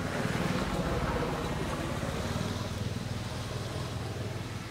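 A low, steady motor rumble like a passing vehicle, loudest about a second in and then slowly fading.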